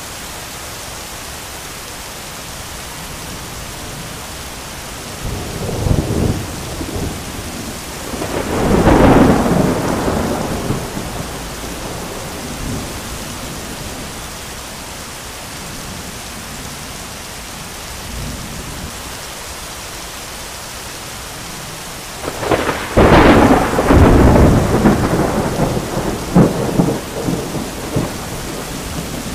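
Heavy rain pouring steadily, with two peals of thunder. The first rolls in about a fifth of the way through and swells to a loud rumble; the second comes in the last third as a run of sharp cracks that rumble on for several seconds.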